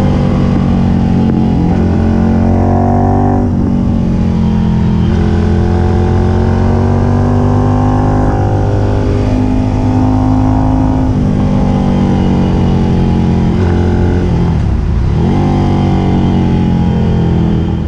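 Ducati Monster 796's air-cooled L-twin engine under way, its revs climbing and falling again and again as the rider accelerates, shifts and rolls off the throttle.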